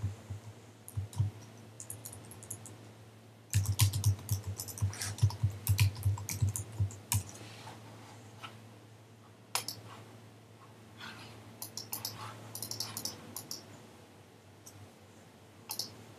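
Typing and clicking on a computer keyboard in irregular bursts, the densest run about three and a half seconds in, over a faint steady low hum.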